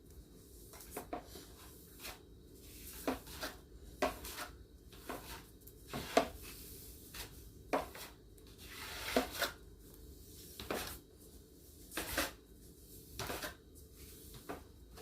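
Household objects being handled and set down: a string of irregular short knocks, clatters and rustles.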